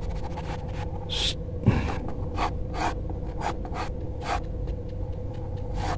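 Graphite pencil sketching on sketchbook paper: quick, short scratching strokes, about two a second, with one sharper tap a little under two seconds in.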